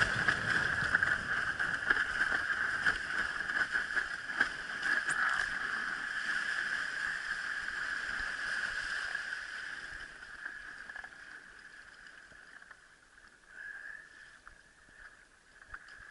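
Water rushing and hissing along a windsurf board at speed, with a steady high tone running through it. The rush fades after about ten seconds as the board slows down.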